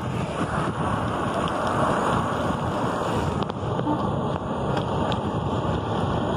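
Wind buffeting the microphone as a bicycle rides along a road: a steady rushing noise.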